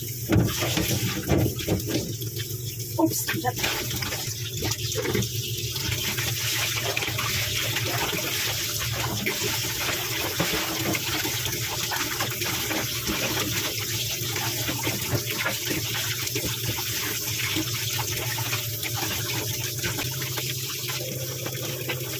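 Kitchen tap running into a basin of water in a stainless-steel sink while raw pork is rinsed and squeezed by hand, the water sloshing and splashing. A few sharper splashes and knocks come in the first few seconds, then it settles into a steady rush of running water.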